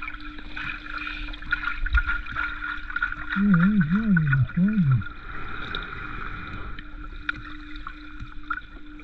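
Muffled underwater sound of water moving around a submerged camera, with a steady low hum running under it. A person's voice breaks in briefly about three and a half seconds in.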